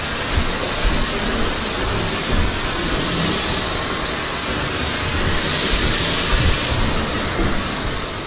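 Hose spraying water at about 180 degrees onto the aluminum walls and floor of a frozen livestock trailer to thaw it: a steady hiss of spray over an uneven low rumble.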